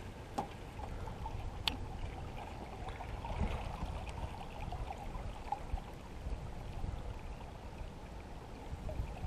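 Water lapping and trickling against the hull of a small jet boat, with a few light clicks.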